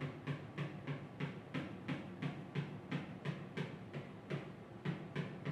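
Pen or crayon strokes on paper, colouring in a drawing with quick, even back-and-forth scratches at about three strokes a second.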